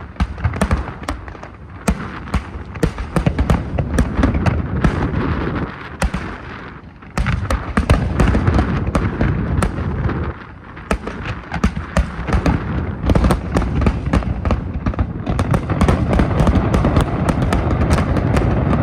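Fireworks display going off in rapid succession: dense crackling and sharp pops over low booms. It thins out briefly twice before picking up again.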